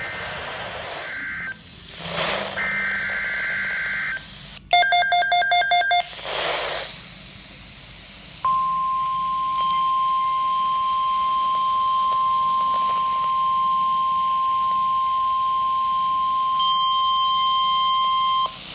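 NOAA Weather Radio Emergency Alert System broadcast: two buzzy two-tone bursts of the SAME header data, then a receiver's pulsing alarm beep cut off after about a second and a half. About eight seconds in comes the steady 1050 Hz weather radio alert tone, held for about ten seconds, with swells of static hiss between the earlier sounds.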